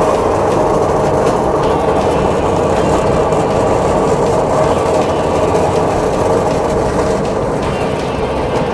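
Biomass powder grinding machine running steadily, a loud, even mechanical noise without breaks.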